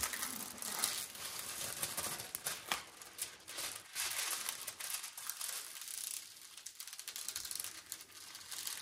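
Plastic packaging crinkling and rustling as it is handled, in a dense run of irregular crackles.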